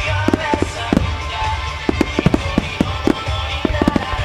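Aerial firework shells bursting in quick succession, several bangs a second, over music.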